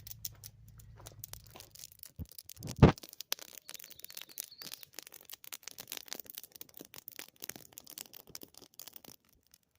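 Campfire burning, wood crackling and popping in quick irregular clicks, with one heavy thump about three seconds in.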